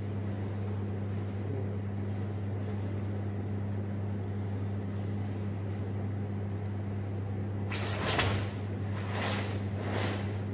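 A steady low hum, then, about eight seconds in, a series of sharp swishing snaps as karateka start a kata: karate gi fabric snapping and bare feet striking and sliding on a wooden floor with each technique. The first snap is the loudest, and three more follow over the last two seconds.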